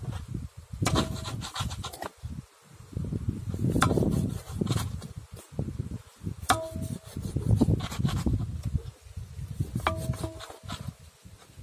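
A knife scoring deep slashes through the scaly skin of a large whole fish on an aluminium plate, giving rasping cuts over a low rumble. Three times the blade knocks the metal plate and makes it ring briefly.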